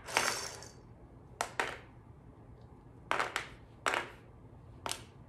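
Short plastic clicks and taps as the pieces of a Rattlesnake Jake toy game are handled at the snake's mouth, coming singly or in pairs every second or so.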